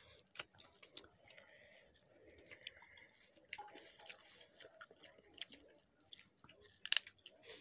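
Fingers mixing rice with dal on a plate, making small wet, sticky clicks and squishes, along with chewing. A louder cluster of clicks comes near the end.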